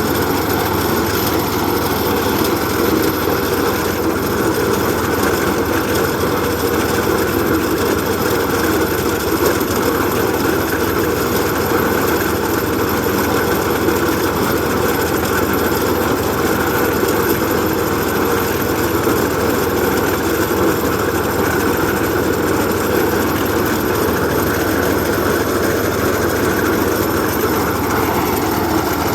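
A machine's engine running steadily and loudly, with no pauses or changes in pace.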